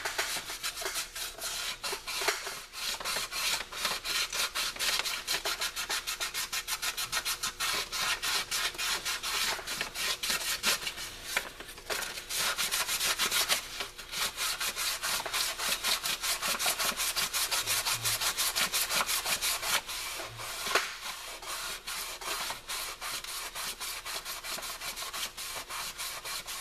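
400-grit sandpaper rubbed by hand over a corroded metal surface, in quick back-and-forth strokes with a few brief pauses, scrubbing off corrosion buildup.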